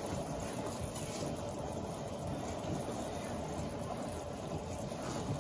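Tomato sauce simmering in a frying pan on a gas burner, a steady bubbling hiss.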